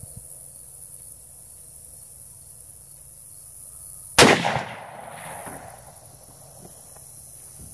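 A single shot from a Henry .30-30 lever-action rifle about four seconds in, its report trailing off over about a second.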